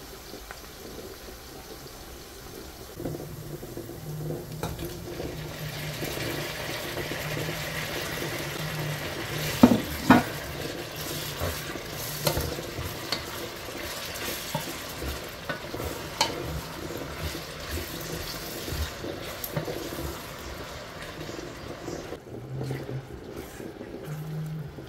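Onions and tomatoes frying in red palm oil in a stainless steel pot while a wooden spoon stirs them, the sizzle growing louder about three seconds in. Two sharp knocks stand out about ten seconds in.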